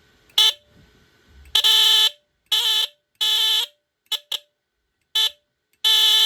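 BRK 769AC/DC smoke detector sounding its alarm on 11.2 volts DC applied at its battery terminals. It comes in uneven bursts: several blasts of about half a second, with a few short blips between.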